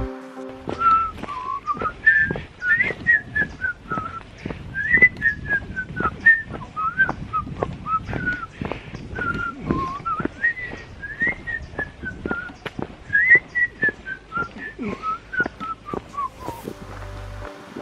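A man whistling a wandering tune as he walks: a single clear note line rising and falling. It starts about a second in and stops near the end, over a steady run of short footstep crunches.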